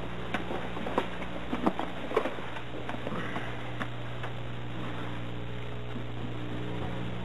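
Steady low hum and hiss of an old television recording, with a few light knocks and clicks in the first two seconds or so.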